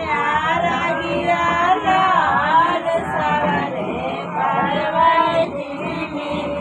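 Singing: a melodic song with voices gliding up and down in pitch, over a music backing.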